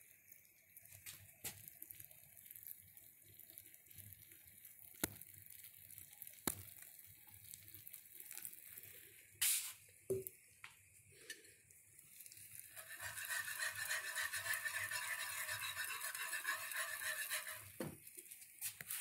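A few small clicks and knocks, then, about 13 seconds in, a wire whisk scraping rapidly around a skillet of gravy for about five seconds before stopping shortly before the end.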